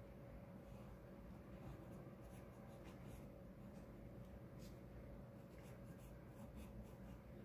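Graphite pencil scratching on drawing paper in many short, faint strokes, more of them after the first couple of seconds, over a faint steady hum.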